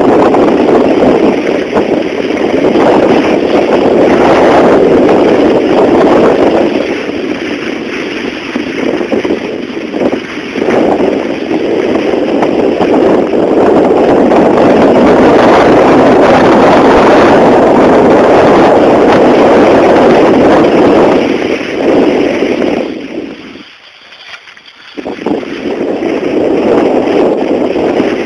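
Loud rushing noise of skiing downhill with the camera: wind buffeting the microphone and skis sliding over the snow. It swells and eases, and drops out briefly near the end before picking up again.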